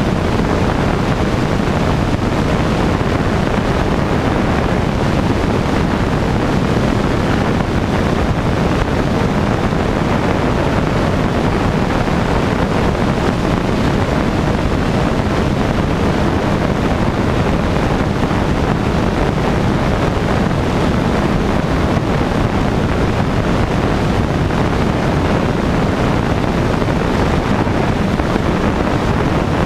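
Rainbow Aircraft Cheetah light aircraft in steady cruise flight: constant engine and propeller drone mixed with the rush of wind over the camera, which is mounted outside under the wing.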